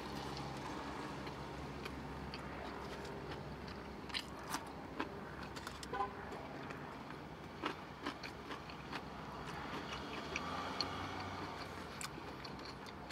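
Close-miked chewing of a big mouthful of sub sandwich, with scattered wet mouth smacks and clicks, over a steady low hum inside a car cabin.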